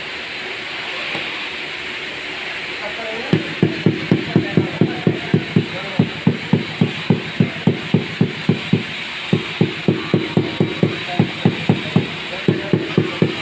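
Rubber mallet tapping a ceramic floor tile down into its mortar bed: a fast run of dull knocks, about three to four a second, starting about three seconds in, with two brief pauses.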